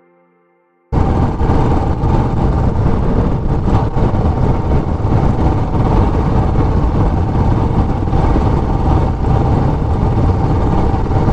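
A motor vehicle on the move, engine and road noise running steadily and loudly, cutting in abruptly about a second in.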